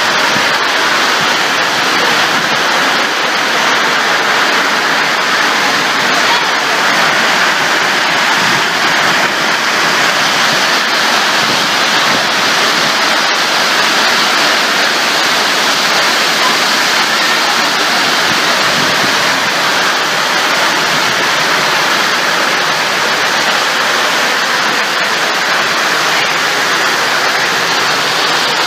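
Severe thunderstorm downpour of heavy rain and hail, falling as a steady, dense wash of noise, with water pouring off the veranda roof edge.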